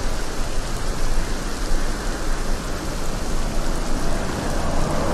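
A steady rain-like rush of noise with a low rumble underneath, an ambience sound effect laid under the edit.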